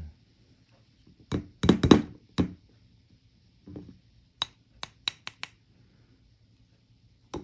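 Spoon knocking and clinking against a ceramic bowl as gochujang paste is scooped in: a cluster of heavy knocks about a second in, a softer thump, then a quick run of five sharp clinks in the second half.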